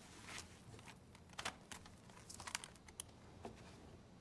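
Faint, scattered clicks and taps from hands working the controls of sound playback equipment, about a dozen irregular taps with a small cluster near the middle.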